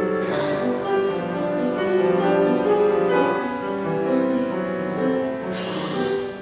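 Concert flute playing a slow melody of held notes over piano accompaniment.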